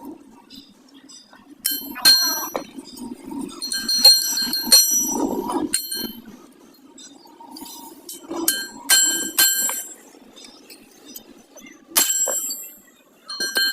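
Metal being struck again and again, each blow ringing like a bell: sometimes a single strike, sometimes several in quick succession, over a steady low hum.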